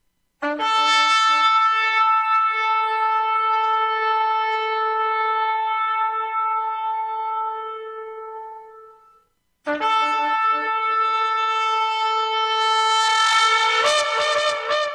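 Shofar (ram's horn) blown in two long, steady blasts: the first lasts about eight seconds and fades, and the second, starting about ten seconds in, breaks into quick short notes near the end.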